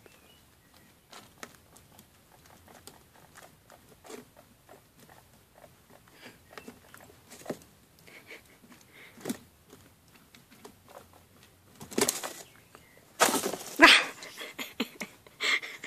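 Young guinea pigs moving about their cage, small scratching and pattering steps on plastic and wood-shavings bedding, with louder rustling bursts near the end.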